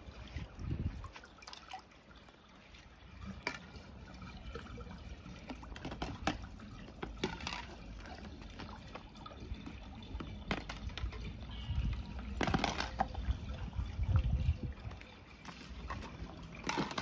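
Water sloshing and trickling, with scattered small clicks and knocks and an uneven low rumble; the louder stretches come about three quarters of the way through.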